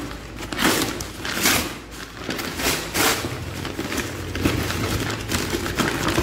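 Brown paper mailer envelope being pulled and torn open by hand, the paper crinkling in a series of sharp rustling bursts.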